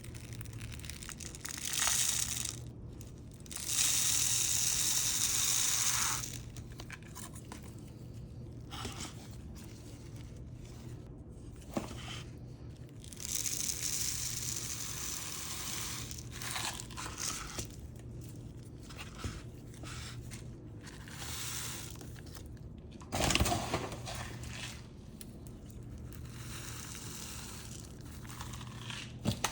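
Plastic cup and bag rustling and crinkling while granular Fluval Stratum substrate is handled and filled around a plant's roots, in a string of bursts a second or two long, the longest about four seconds in and the loudest about 23 seconds in.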